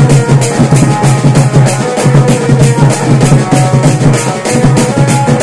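Loud band-party music: a quick, even drum beat with a melody line over it.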